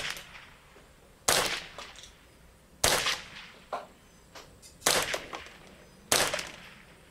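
Kidd 10/22 semi-automatic .22 LR rifle firing four quick shots a second or two apart, each with a short echo.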